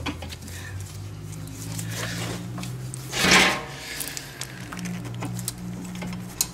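Long pliers clicking and scraping against a stiff drum-brake return spring and brake shoe while it is pulled hard to unhook it. A low steady hum runs under it, and a short loud rush of noise comes about three seconds in.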